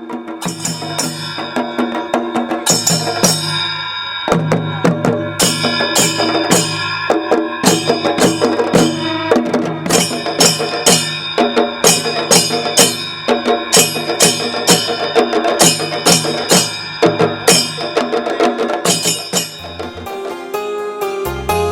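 Instrumental music with a steady, regular drum beat.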